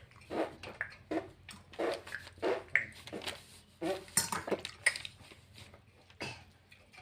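Dishes clinking and scraping in a quick, irregular run as a meal of rice and vegetables is handled and scooped up from the plate; the sounds thin out near the end.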